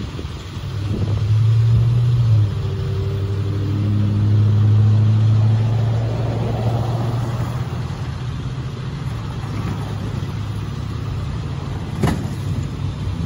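Road vehicle engines running and passing, with a steady low engine drone for most of the time and a single sharp click about twelve seconds in.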